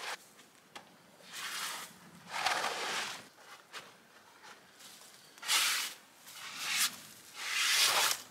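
Heavy canvas tarp rustling and crinkling in about five short bursts as it is pulled and smoothed over a rope ridgeline.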